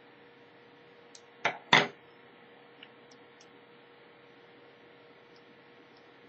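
Two sharp metal clicks close together about a second and a half in, with a few faint ticks, as a small stainless steel folding multitool is handled, its parts snapping and tapping. A faint steady hum lies underneath.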